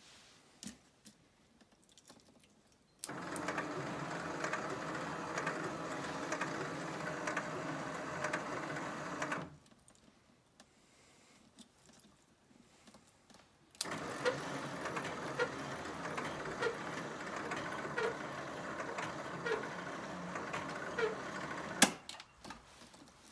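Code 3 MX7000 lightbar's rotator motors and gear drives whirring with a light ticking, switched on for about six seconds, off, then on again for about eight seconds. A sharp click comes as they stop near the end.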